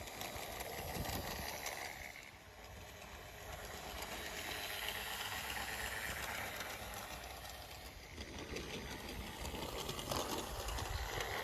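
OO gauge model train running along the garden layout's track: a faint, steady running noise of wheels and motor that swells and fades slightly as it moves.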